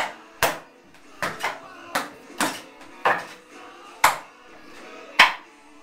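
Hands and forearms striking the wooden arms and trunk of a Wing Chun wooden dummy (mook jong): sharp wooden knocks at an uneven rhythm, about nine of them, some in quick pairs.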